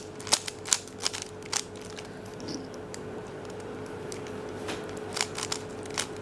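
Plastic Rubik's cube being turned by hand: quick, irregular clicks of its layers snapping round, a run in the first second and a half and another near the end.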